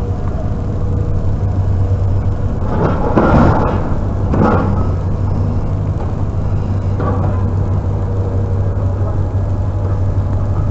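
A vehicle engine idling steadily with a low hum, with a brief louder noise about three to four seconds in.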